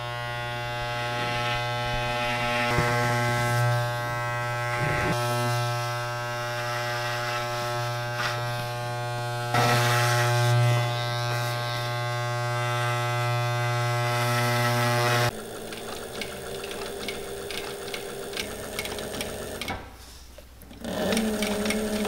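Electric hair clippers buzzing steadily as they shear down thick sheepskin wool. They cut off suddenly about fifteen seconds in, and a sewing machine takes over with a rhythmic ticking run as it stitches the wool lining.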